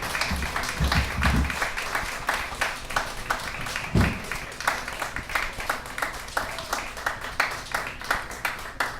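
Audience applauding, many hands clapping, the clapping slowly thinning out toward the end.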